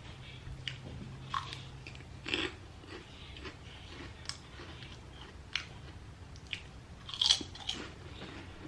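Close-up crunchy chewing of chatpate, a spicy puffed-rice snack, with scattered crisp crunches and the loudest crunch about seven seconds in.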